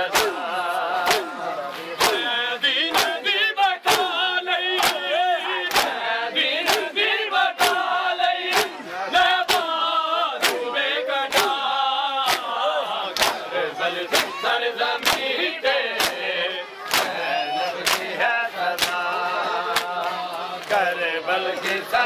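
Matam: a crowd of men chanting a mourning chant together while slapping their bare chests with their hands in unison, one loud slap about once a second.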